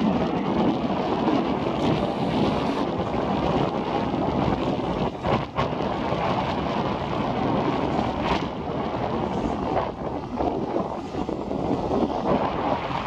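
Strong wind buffeting the microphone: a loud, continuous rumbling rush that swells and dips.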